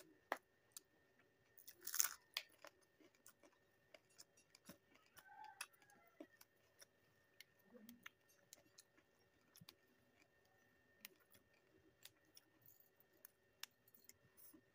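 Faint close-up eating sounds: soft chewing and wet mouth clicks scattered throughout, with a louder crisp crunch about two seconds in.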